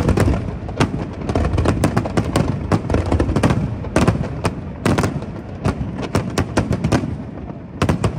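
Aerial firework shells bursting in a dense, continuous barrage of sharp bangs and crackles over a steady low rumble.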